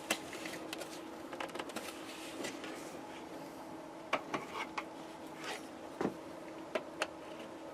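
Scattered clicks and light knocks from handling a backup camera monitor while working it loose from its stand, over a faint steady hum.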